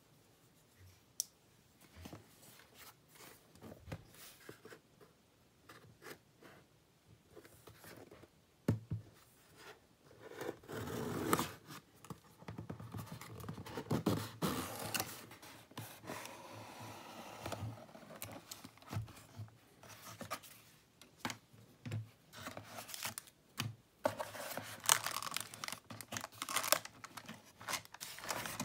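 A cardboard box being cut open with a knife: scattered taps and clicks, then the blade scraping and slitting along the box's taped seams, and the cardboard flaps rubbing and tearing as they are pulled open near the end.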